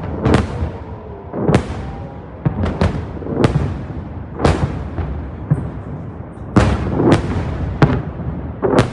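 Series of about nine explosions during a rocket barrage, sharp blasts arriving irregularly, some in quick pairs, each echoing briefly.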